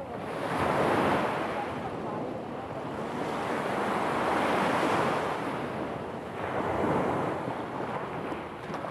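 Small waves breaking and washing up a pebble beach, the surf swelling and easing three times, with wind buffeting the microphone.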